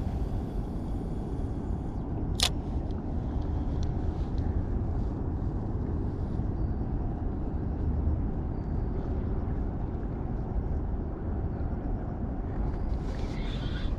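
Steady low outdoor rumble, with one sharp click about two and a half seconds in and bird calls starting near the end.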